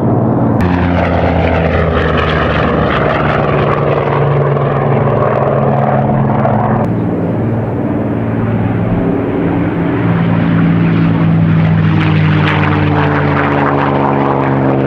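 P-51 Mustang's V-12 piston engine droning steadily as the plane flies past, its sound changing abruptly twice where the footage is cut.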